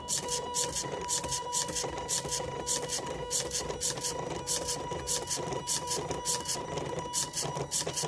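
Small stepper motors of a DIY pen plotter built from old CD drive mechanisms, moving the pen in short, quick buzzing bursts several times a second over a steady high whine as it draws.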